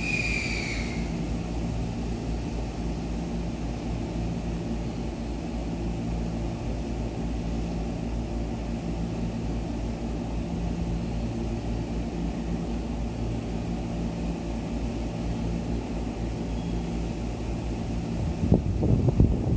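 E231 series 0 electric commuter train standing at the platform, its on-board equipment giving off a steady low hum with a few pitched tones. A brief high tone sounds at the very start, and wind buffets the microphone near the end.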